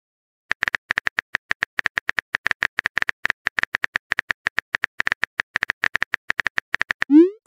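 Simulated keyboard typing clicks from a texting-story chat animation, a fast, even patter of about seven or eight light taps a second as a message is typed out. A short rising swoosh near the end marks the message being sent.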